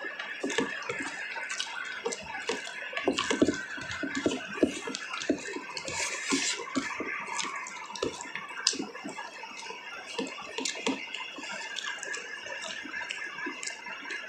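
Close-up eating sounds of curd and rice: wet chewing and smacking with many short, irregular clicks.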